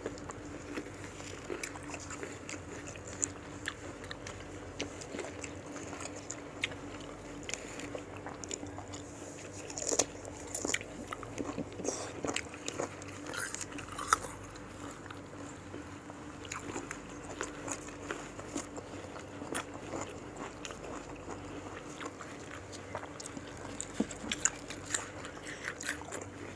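Biting and chewing of raw fruit pieces dipped in sambal rujak: scattered crunchy bites and chewing, over a faint steady hum.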